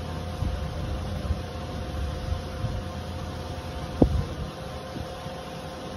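Handling of a small 360 camera (Insta360 One X2) turned over in the hands, with one sharp click about four seconds in, over a steady low rumble and faint hum.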